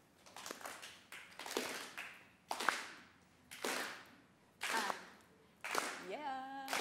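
Audience doing a soul clap: many hands clapping together in a slow, steady beat, about one clap a second. A voice calls out briefly near the end.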